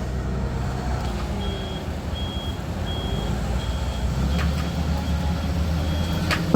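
Forklift reversing alarm beeping steadily, about one short high beep every three-quarters of a second, over the forklift's running engine, which grows louder about two-thirds of the way through. A couple of sharp metallic knocks come near the end.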